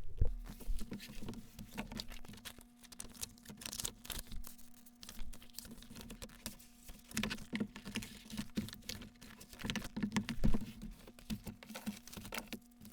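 Irregular light clicks and taps at a desk, over a faint steady hum.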